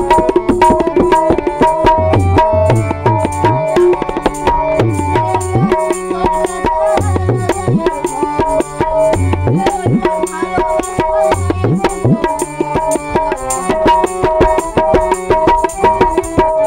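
Tabla and harmonium playing an instrumental passage: fast, dense tabla strokes, with the bass drum's pitch sliding up again and again, over a steady harmonium melody.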